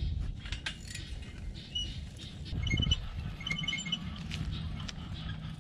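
Wind buffeting the microphone, with a loaded wheelbarrow pushed over grass and straw and footsteps in boots. A few short, high chirping notes come about halfway through.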